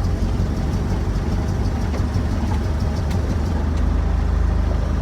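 Ford Ranger pickup's engine and glass-pack exhaust rumbling steadily as the truck drives slowly, with a couple of faint clicks about three seconds in.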